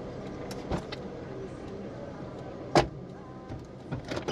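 A car's engine running steadily, broken by a few sharp knocks. The loudest knock comes just before three seconds in, and two more come close together near the end.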